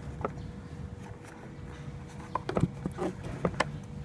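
Scattered short clicks and soft knocks as a rubber dust cover is pressed and worked back onto the back of a car headlight housing, over a steady low hum.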